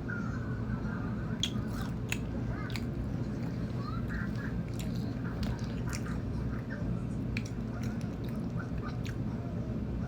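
Potato chips being crunched and chewed: irregular crisp crunches, one every second or so, over a steady low hum.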